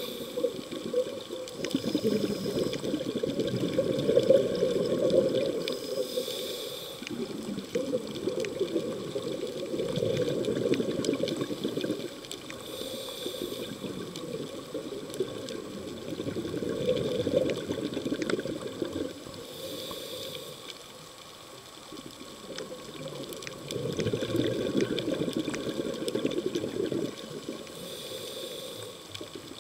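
Scuba regulator breathing heard underwater: a short hiss of inhaled air about every six or seven seconds, each followed by a few seconds of low bubbling as the exhaled air escapes.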